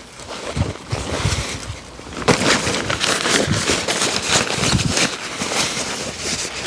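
Heavy tent fabric rustling as it is handled, with wind buffeting the clip-on microphone in low thumps; the rustling grows louder about two seconds in.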